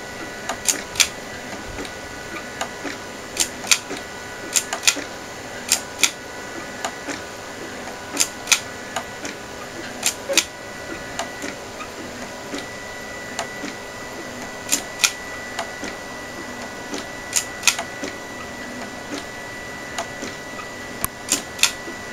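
MakerBot Thing-O-Matic 3D printer running: a steady high whine from its stepper motors, with sharp clicks at irregular intervals, often in pairs or short clusters. The whine gets stronger about halfway through.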